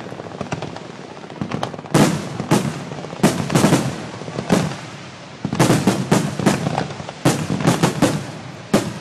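Fireworks display: aerial shells bursting overhead in sharp bangs. The bangs are sparse for the first two seconds, then come thick and fast in quick clusters.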